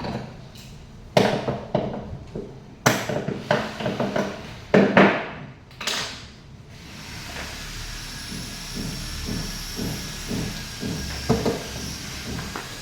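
Several sharp knocks and clatters of hard objects, then a steady hiss with a faint high whine and light tapping.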